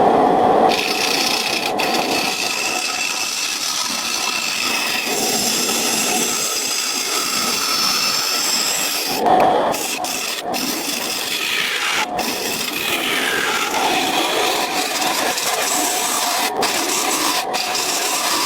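Wood being worked with a hand tool: a continuous scraping, rubbing sound like sawing or rasping, broken by a few very short gaps.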